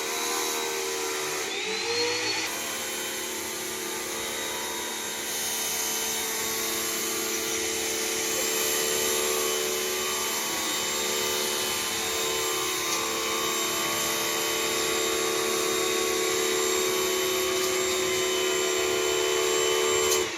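Btali BT 901 HPW electric high-pressure washer running under a pressure test, its motor and pump giving a steady hum with a strong hiss. The pitch rises briefly about two seconds in, then holds steady.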